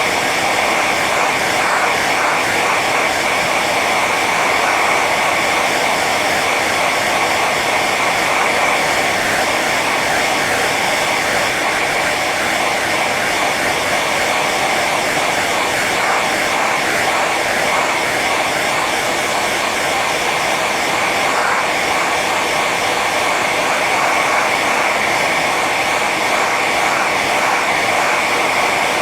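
Hair dryer running steadily on its high setting: an even, unchanging rush of blown air over the motor and fan, with a slight whistle high in the noise.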